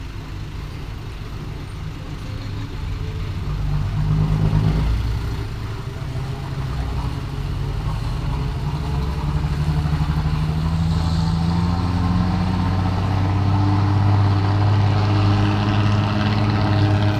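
Nissan diesel truck engine roaring as the truck approaches, swelling briefly about four seconds in, then growing steadily louder over the last several seconds.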